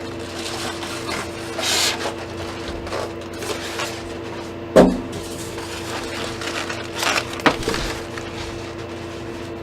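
Packing being handled as a computer case is lifted out of its box: scraping and rustling, with a sharp knock a little under five seconds in and a smaller knock about two and a half seconds later, over a steady low hum.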